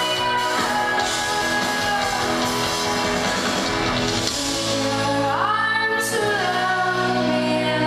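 Female singer with a live rock band (drums, guitar, keyboard) performing a pop ballad, with the echo of a large hall. About five seconds in, a sung note swoops up and is held.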